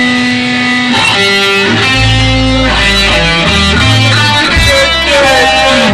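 Loud music: held chords over a low bass line that steps to a new note every half second to a second.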